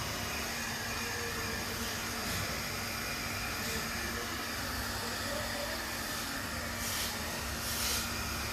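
Electric hair dryer blowing steadily with a constant hum, used to dry a freshly washed puppy. Two short hisses come near the end.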